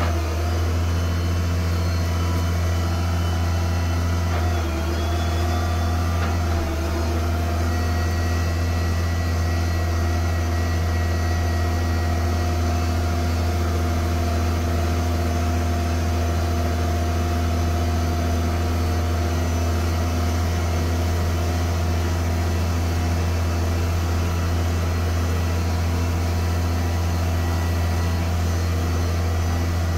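New Holland 8770 tractor's diesel engine running at a steady speed, a constant low drone that holds the same pitch throughout.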